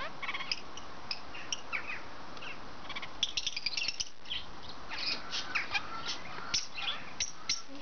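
Red-fronted kakariki parakeets chirping: many short, high chirps, busiest about three seconds in, with a few short sliding calls later on.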